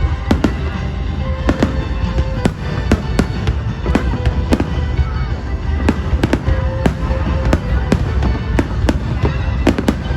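Fireworks exploding in a rapid, irregular series of sharp bangs, several a second, over a continuous low rumble, with music playing along.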